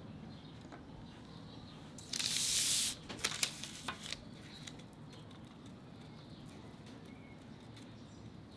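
Pastry being trimmed at the edge of a metal tart ring: one short scrape about two seconds in, then a few light clicks and taps. Otherwise low room tone.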